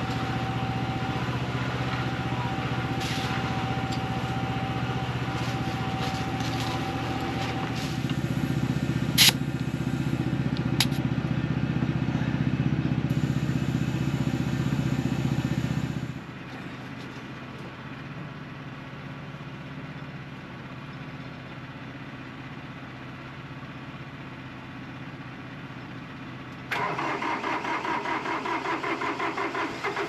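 An air compressor running with a steady hum and a held whine, airing up a flat tractor tire; it gets louder about a quarter of the way in and cuts off sharply about halfway. After a quieter stretch, a compact tractor's engine starts near the end on a cold start and runs with a fast, even chug.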